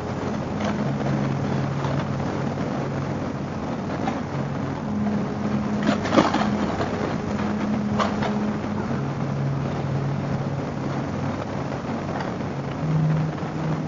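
Harley-Davidson V-twin motorcycle engine running on the road, its steady note switching between two pitches, over wind and road noise. Sharp knocks come about six and eight seconds in, the first the loudest.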